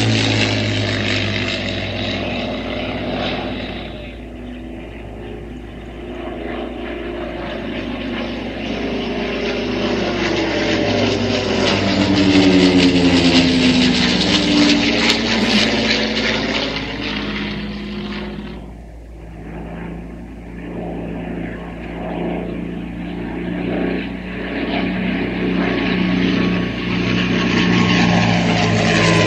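Piston engines of a Messerschmitt Bf 109E and a Focke-Wulf Fw 190 flying past in formation. The propeller drone swells and drops in pitch as they pass overhead, fades, then comes back loud. It cuts off sharply about two-thirds of the way through before building again.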